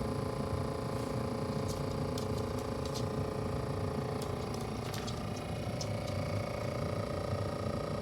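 A steady hum with a low rumble and a few faint clicks.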